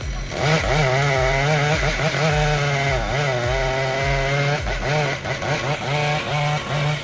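Chainsaw cutting wood, its engine pitch wavering up and down as it works, over background music with a steady beat.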